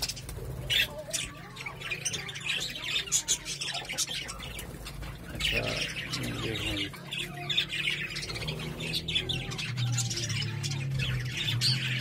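A flock of budgerigars chattering, with many overlapping squawks and chirps throughout.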